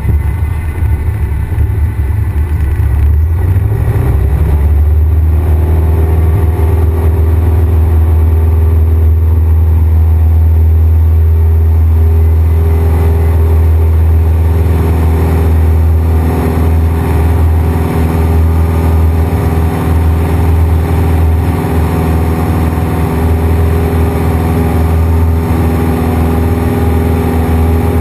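Cessna 172's piston engine and propeller at takeoff power, heard from inside the cabin. The engine note rises about four seconds in as power comes up, then holds steady through the takeoff roll and climb-out.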